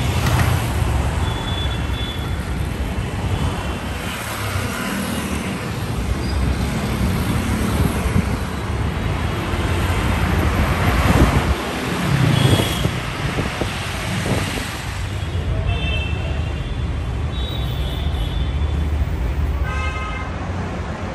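Dense city road traffic: engines and tyres running steadily, with vehicle horns tooting several times, the most prominent horn near the end.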